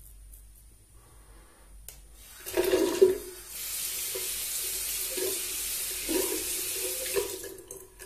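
Bathroom tap running into a sink for about four seconds, starting about three and a half seconds in and stopping near the end. Just before it comes a short knock, the loudest moment.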